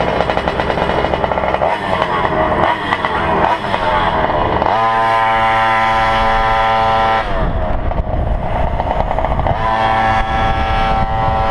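Goped GP460's small two-stroke engine running under throttle as the scooter pulls away and rides, its pitch climbing in steps, holding a steady high note for a couple of seconds, dropping, then climbing again near the end. The owner says the engine bogs.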